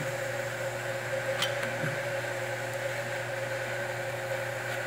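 Steady machine hum with fixed tones, and a single light click about a second and a half in.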